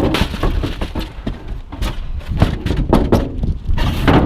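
Rummaging through dumpster junk: a run of irregular knocks, clatters and scrapes as plastic and metal items are pushed around and lifted, with a sharp knock right at the start.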